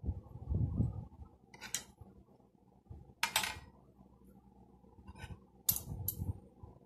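Spoon and fork clinking and scraping against a plate of rice: several short sharp clinks, the loudest about three seconds in, with a few dull low knocks among them.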